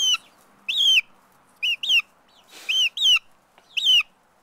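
A chicken giving about seven short, high-pitched calls, each rising then falling in pitch, some of them in quick pairs: chatty vocalising from a bird close to the microphone.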